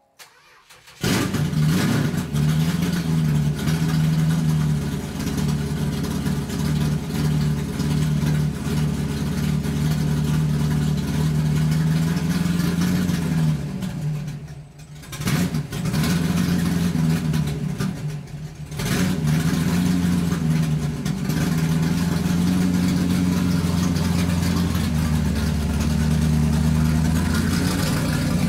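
Engine and road noise of a moving car heard from inside, a steady hum that dips briefly twice around the middle.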